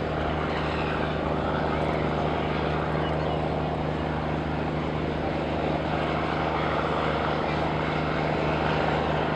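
A tugboat's diesel engine running with a steady, even drone, holding several low tones.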